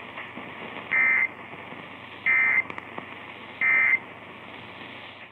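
Emergency Alert System end-of-message (EOM) signal: three short bursts of digital data tones, about 1.3 seconds apart, over a steady background hiss. The bursts mark the end of the alert.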